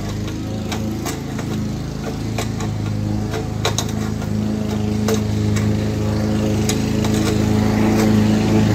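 An engine running steadily underneath, with scattered sharp metallic clicks about once a second as an adjustable wrench tightens a brass quick-connect fitting on an air compressor's outlet manifold.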